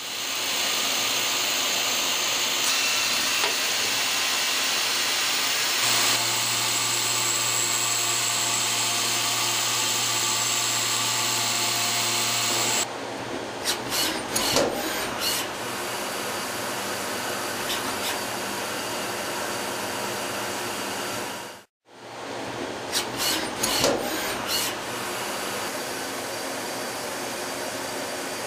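Citizen Cincom M32 VIII sliding-headstock CNC lathe machining metal: a steady hiss with a low hum through the first half. After an abrupt change it runs quieter, broken by clusters of sharp clicks and knocks, with a brief cut-out about three-quarters of the way through.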